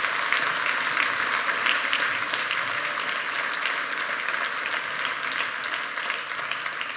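Audience in a concert hall applauding steadily, the clapping slowly dying down near the end.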